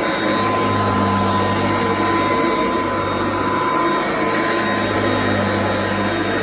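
Kirby D50 upright vacuum cleaner running steadily on carpet: a steady motor whine with a low hum over a rush of air. With its front motor bearing newly replaced, it runs normally.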